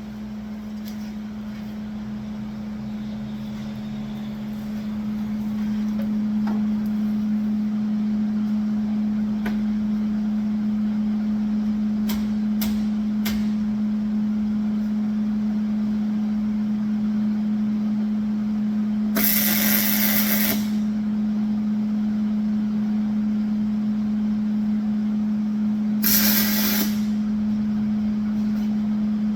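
Two short welding tacks on a steel angle-iron frame, each a crackling arc burst of about a second and a half, the second coming some six seconds after the first, over a steady low machine hum.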